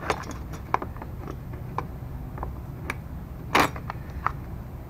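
Hard plastic clicking and knocking as a mower's air filter cover is handled and pressed back onto its housing: about seven separate clicks, with a longer, louder rattle about three and a half seconds in.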